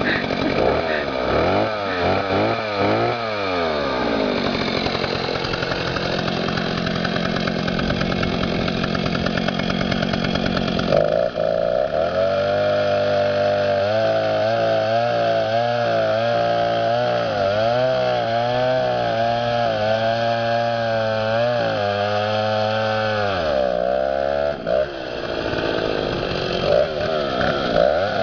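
Two-stroke chainsaw running and cutting into a tree trunk. Its engine speed rises and falls in the first few seconds, then from about 11 seconds in it runs lower and wavers under the load of the cut, with a brief dip and recovery near the end.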